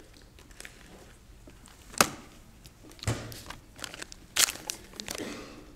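Sheets of paper rustling and being handled close to the podium microphone in several short bursts, with one sharp knock about two seconds in, the loudest sound.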